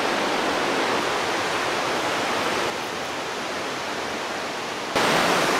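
Steady rushing of the Nahatlatch River's whitewater rapids through the forest. It drops a little in level about halfway through and comes back up near the end.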